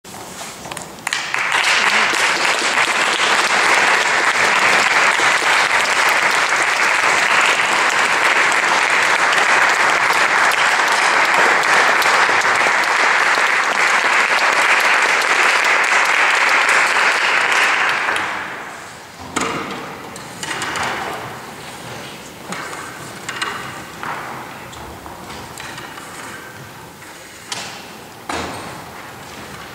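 Audience applauding steadily for about eighteen seconds, then dying away. After it, a few scattered thuds and knocks as the string players settle into their chairs with their instruments.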